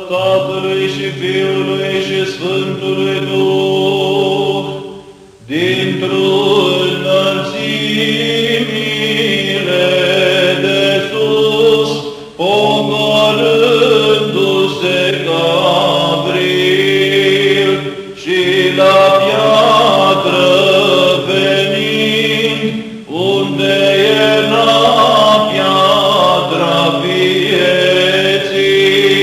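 Romanian Orthodox Byzantine chant in the fourth tone: a male cantor sings long, ornamented melodic phrases over a steady held drone note (ison). The phrases are separated by brief pauses.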